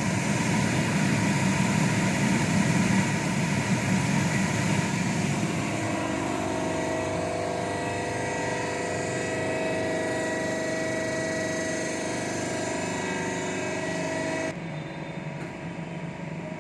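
CNC lathe running: a dense, loud machine noise for the first few seconds that settles into a steady whine from about six seconds in. Near the end the high hiss cuts off suddenly and the sound drops in level, leaving a lower steady hum.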